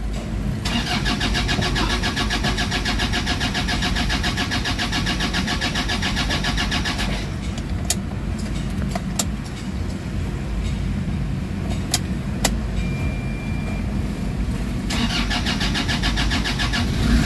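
Toyota Fortuner common-rail diesel engine being cranked by its starter motor for about six seconds to build fuel pressure after a crank-no-start fuel-system repair, then a lower steady engine sound with a few sharp clicks, and a second bout of cranking near the end.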